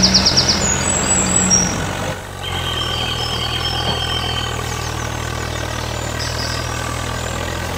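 Heavy vehicle engine running steadily, dropping to a lower, steadier hum about two seconds in, with birds chirping.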